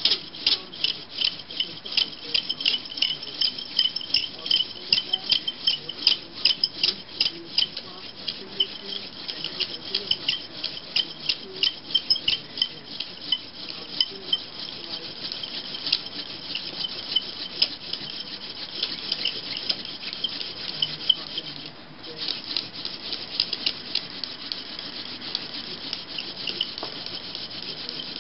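Hand drill friction fire: a horseweed or mullein stalk spindle spun back and forth between the palms into a white pine hearth board, rubbing and squeaking in a quick rhythm of about two strokes a second, with a brief break near the end.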